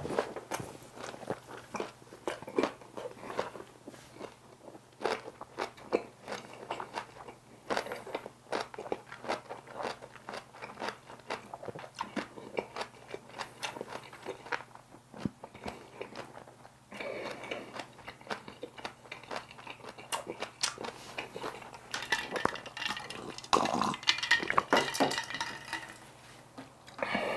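Close-up chewing of a kimchi wrap (kimchi ssam): a dense run of short crunches and wet mouth clicks, busier and louder near the end.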